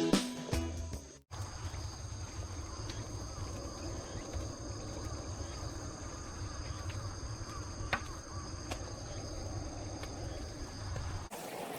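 Insects singing in the undergrowth: several steady high-pitched trills held without a break, over a low rumble. One sharp tick falls about eight seconds in. Background music fades out in the first second.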